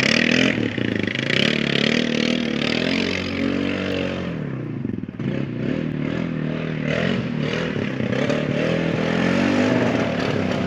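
Four-wheeler (ATV) engine revving up and down as it is ridden through mud and water, its pitch rising and falling repeatedly. It drops back briefly about halfway through, then revs up again.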